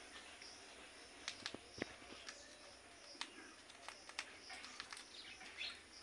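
A parakeet's beak biting and crunching a leafy sprig held in its foot: a scatter of short, sharp clicks, irregularly spaced, with a few faint high chirps.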